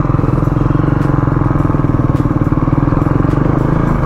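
Motorcycle engine running steadily at low speed, heard close from the rider's own bike, with a fast, even pulsing beat.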